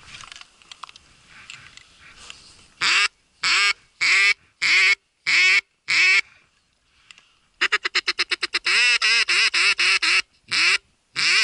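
Duck call blown close by: five separate quacks about a second apart, then a fast string of short quacks, and two more quacks near the end.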